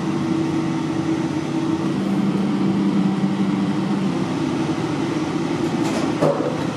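Passenger lift car travelling down between floors: a steady ride hum with a low motor tone that drops in pitch about two seconds in, and a couple of sharp clicks near the end.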